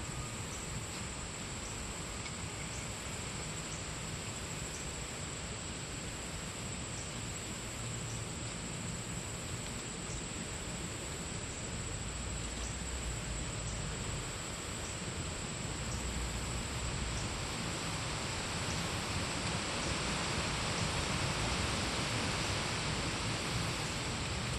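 Steady creek-side outdoor ambience: an even hiss with a constant high-pitched insect drone over it, growing slightly louder in the last few seconds.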